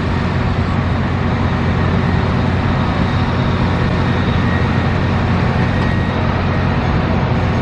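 Steady, loud rumble of street traffic, with a faint high whine running through it.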